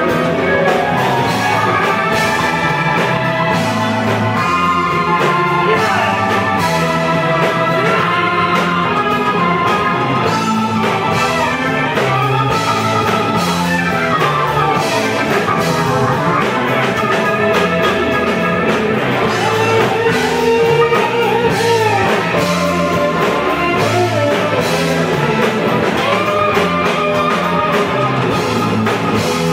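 A doom metal band playing live: electric guitar, bass and drum kit in a slow, heavy groove, with a woman singing over it.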